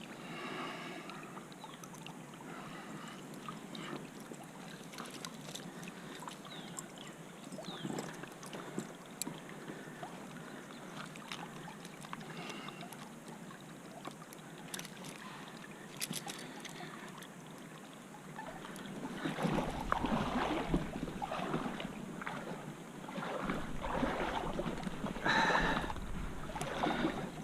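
Water sloshing and splashing around a belly boat (float tube) being moved through a small creek, with scattered small clicks. The splashing grows louder and rougher in the last third.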